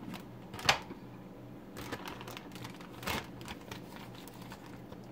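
A few light clicks and crinkles, three in all, the first the loudest: a plastic bag being handled and herb and garlic pieces dropped into a disposable aluminium foil pan. A faint low hum runs underneath.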